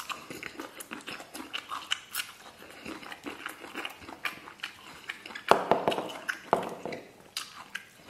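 Close-miked chewing of a mouthful of rice, braised pork and raw garlic cloves: wet smacking and small crunching clicks all through, with a louder stretch of smacking about five and a half seconds in.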